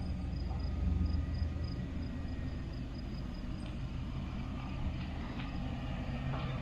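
A vehicle's engine running at low speed, a steady low rumble, a little louder in the first couple of seconds.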